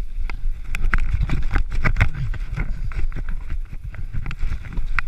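Mountain bike riding down a rough, rutted dirt trail: a steady low wind rumble on the microphone, broken by frequent irregular clicks and rattles as the bike jolts over bumps.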